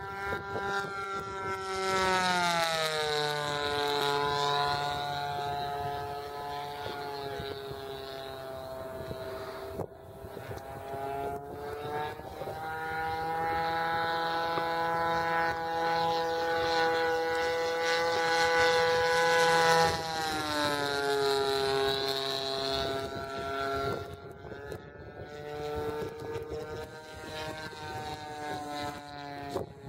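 Radio-controlled model airplane engine droning steadily as the plane flies overhead. Its pitch drops as the plane passes, about two seconds in and again about twenty seconds in, and climbs again around twelve seconds in.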